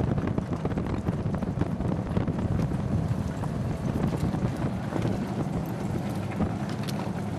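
Wheeled dog cart rolling along a dirt trail behind a running sled-dog team: a steady low rumble with many small clicks and rattles, and wind on the microphone.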